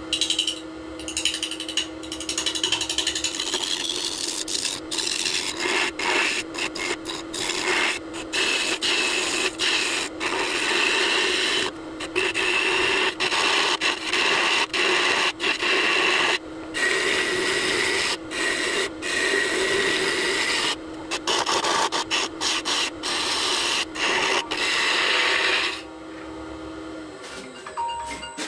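Wood lathe running with a steady motor hum while a turning tool cuts a spinning blank of walnut and epoxy: a rough scraping hiss that breaks off each time the tool lifts away and starts again. Near the end the cutting stops and the motor hum drops away.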